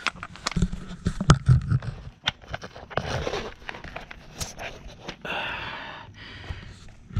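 Handling noise from a corded impact wrench and its deep-well socket being picked up and moved about on a canvas tarp. Irregular sharp clicks and knocks, thickest in the first couple of seconds, with scraping and rustling between them.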